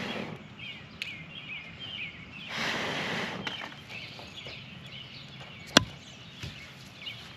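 Small birds chirping repeatedly in the background. Two swells of rushing noise pass, one at the start and one about two and a half seconds in, and there is one sharp click near the end.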